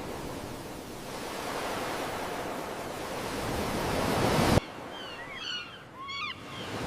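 Ocean surf rushing onto the beach, swelling and then cutting off abruptly about two-thirds of the way through. Afterwards it is much quieter, with a few short chirping bird calls.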